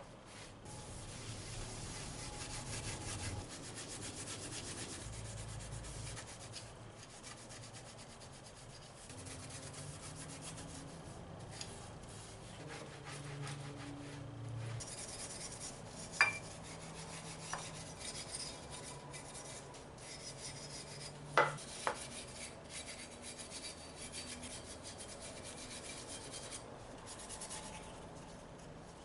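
Steady rubbing and scraping, with two sharp clicks, one a little past halfway and another about five seconds later.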